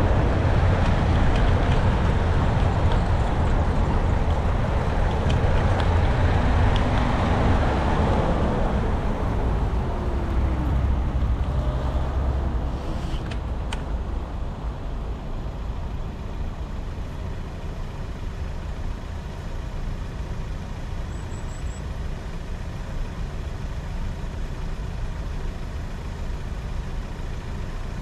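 Road traffic noise heard while riding an electric scooter: a heavy, dense rumble with a falling pitch partway through, easing off about halfway in to a steadier, quieter road noise.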